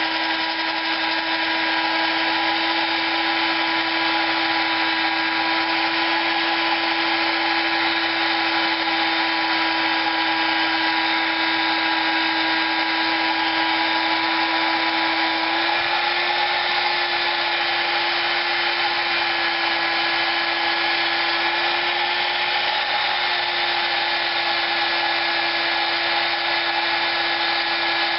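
Power tool spinning a polishing pad against a Predator 212 cylinder head, smoothing it toward a near-mirror finish. It runs as a steady whine over a grinding hiss, its pitch stepping slightly higher a little past halfway through.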